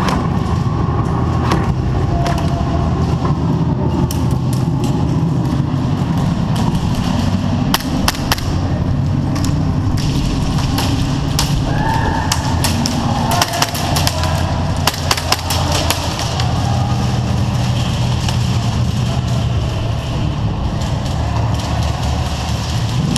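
Airsoft guns firing in scattered clusters of sharp clicks and snaps, heaviest in the middle of the stretch, over a steady low rumble.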